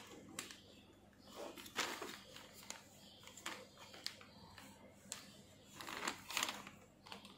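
Faint crinkling of a plastic sheet and light clicks and knocks as a TV circuit board is handled and turned over on it, with two louder stretches of rustling.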